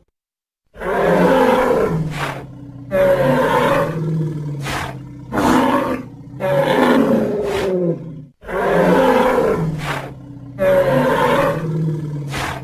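Dinosaur roar sound effect: about six growling roars with short pauses between them, starting about a second in, several of them ending in a brief hiss of breath.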